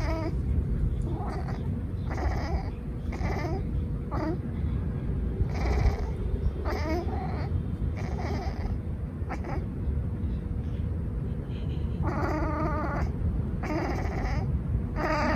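Domestic tabby-and-white cat chattering at prey she has in sight: about a dozen short, clipped calls, mostly a second or so apart, with a longer run near the end, over a steady low rumble. It is the excited jaw-chattering of a cat in hunting mode.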